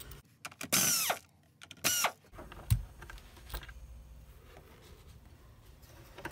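Cordless drill/driver backing out the side-cover screws on a carpet cleaner's brush housing, in two short whirring bursts about a second apart, each falling in pitch as it stops. Light handling knocks follow as the screws and cover are worked loose.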